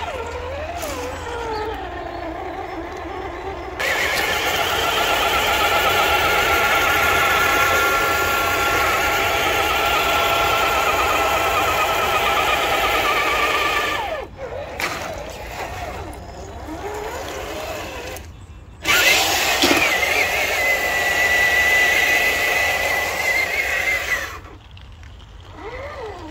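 Traxxas TRX-4 crawler's Titan 550 brushed electric motor and gearbox whining as the 1/10-scale truck drives through shallow water and mud, the pitch rising and falling with the throttle. The sound comes in several separate takes that start and stop abruptly, with a steady high whine near the end.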